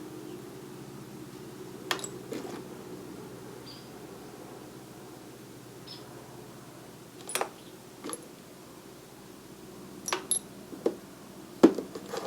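Small metal tool pieces clinking and knocking against each other and the box as they are sorted through by hand: a scattering of separate sharp clinks, the loudest near the end, over a low steady hum.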